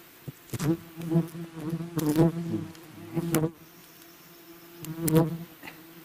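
Swarm of agitated giant honey bees buzzing steadily around the microphone. About four times, a single bee flies close past, making a brief, louder buzz that rises and falls in pitch.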